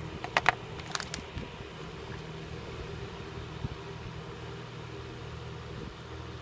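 Steady low room hum, like a running fan, with a few sharp clicks and crinkles of things being handled on the desk about half a second and one second in.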